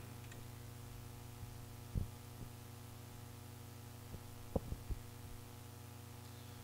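Steady low electrical hum on the microphone line, with a few brief knocks, about two seconds and four and a half seconds in.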